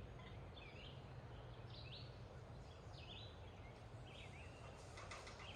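Faint birds chirping, short high notes repeated about once or twice a second, over a low steady hum.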